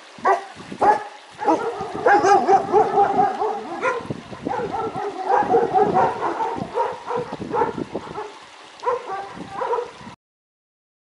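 Puppies whining and yipping: a run of high, wavering cries, some drawn out and some short.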